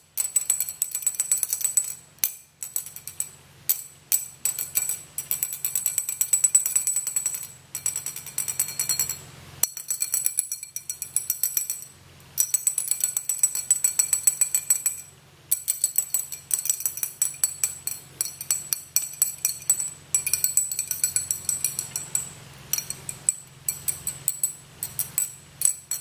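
Evacuated glass tube holding only water (a water hammer) being shaken: with no air to cushion it, the water slug strikes the glass end in rapid, sharp clinks, in bursts of a few seconds with short pauses.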